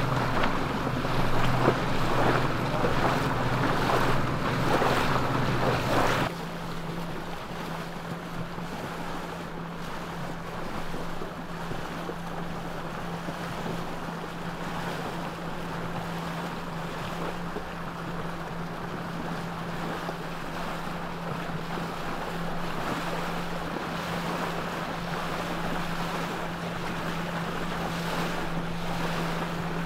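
Boat engine running with a steady low drone under wind and water noise. About six seconds in, the sound drops suddenly in level and the drone settles on a different steady pitch.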